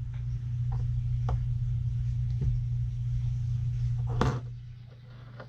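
A few light clicks of plastic LEGO pieces being handled, the loudest about four seconds in, over a steady low hum that drops away just after it.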